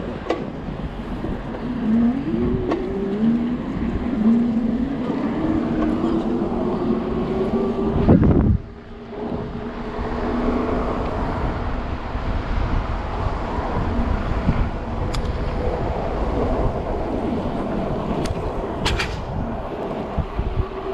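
A motor vehicle's engine accelerating through several gears, its pitch climbing and dropping back at each shift, cut off abruptly about eight seconds in. Steady wind and road noise from riding continue throughout.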